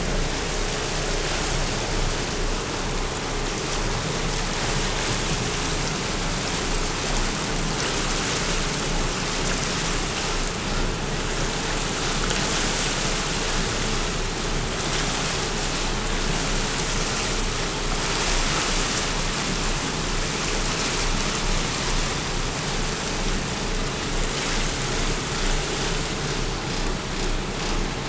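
Steady rush of churning water and wind along the side of a moving ferry, with a low, even engine hum underneath.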